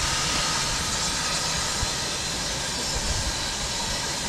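Steam train running, a steady hiss of steam over a low rumble.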